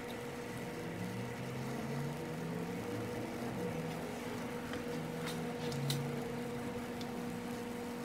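Small submersible water-fountain pump humming steadily as it pushes water up into a clear plastic ornament globe, filling it, with faint water sounds and a few small clicks about five to six seconds in.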